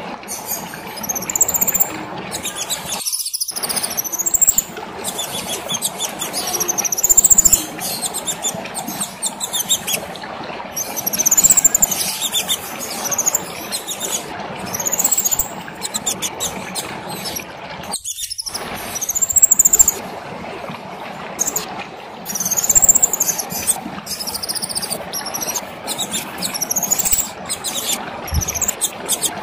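Kemade songbird singing a busy, high-pitched song of repeated rising-and-falling whistled phrases over a steady background hiss. The sound cuts out completely for a moment twice.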